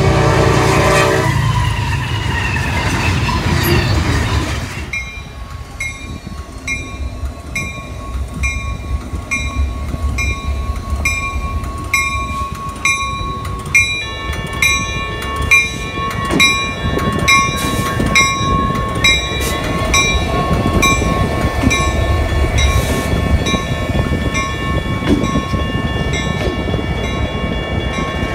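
A diesel freight locomotive's horn sounds briefly at the start. Then a Safetran Type 1 electromechanical grade-crossing bell rings in steady, evenly spaced strokes over the low rumble of the train, with a second bell's tones joining about halfway through.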